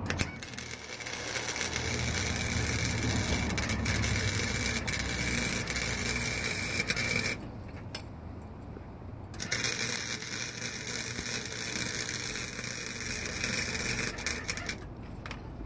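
Harbor Freight 125 amp flux-core wire-feed welder arc crackling while it welds steel exhaust tubing, set to its minimum setting. There are two runs: the first lasts about seven seconds, then it stops for about two seconds, and a second run goes on until shortly before the end.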